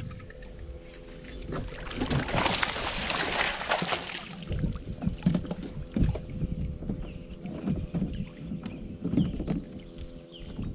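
Water splashing and sloshing around a fishing kayak, with scattered clicks and knocks of gear being handled on the hull, loudest a couple of seconds in. A faint steady hum runs underneath.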